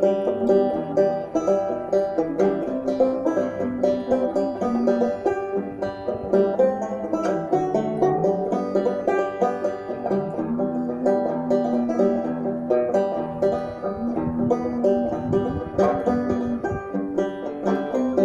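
Six-string banjo played solo, quick plucked notes and rolls with sustained bass notes underneath.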